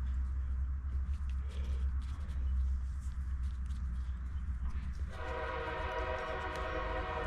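A steady low hum with a droning chord of steady tones from running machinery; the chord is absent at first and comes back abruptly about five seconds in. Light clicks and taps of small parts being handled sound over it.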